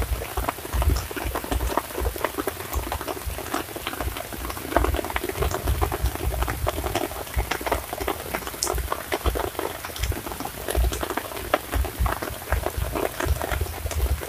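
Continuous pattering and splashing of water from inlet pipes spouting into a fish pond, dense with small irregular ticks, over low uneven rumbling bursts.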